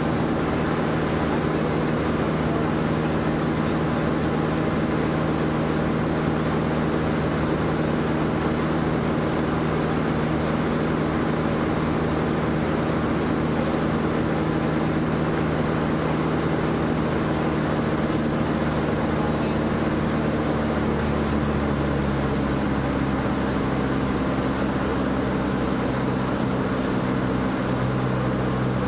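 Cabin noise of a Grumman American AA-1 Yankee in flight: its Lycoming four-cylinder engine and propeller running steadily, heard from inside the cockpit. The engine note shifts about two-thirds of the way through, as the power setting changes on the approach.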